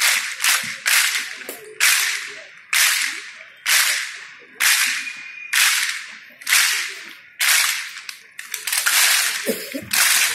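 A large group of people clapping in unison, each clap sharp and fading quickly. The claps come about three a second at first, settle to roughly one a second, then quicken again near the end.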